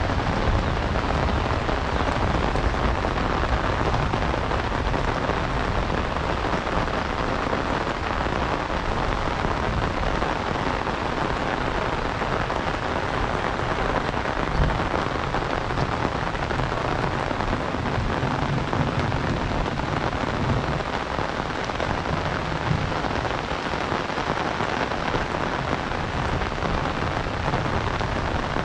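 Heavy rain falling steadily, a dense, even hiss of downpour that does not let up.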